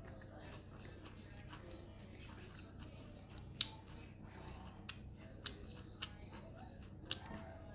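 Crispy banh chao crepe being torn apart by hand, giving a handful of short, sharp crackles in the second half, the first and loudest about three and a half seconds in.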